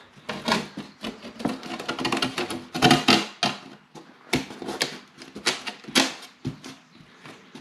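Irregular clicks, knocks and rustling as a thin plywood seat sheet is set back down onto a wicker chair and pressed into the glue.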